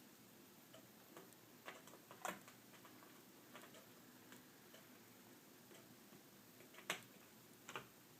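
Faint scattered clicks and light taps of a small screwdriver and screws as the screws holding a laptop's replacement LCD panel are refastened. The two sharpest clicks come about two seconds in and about seven seconds in.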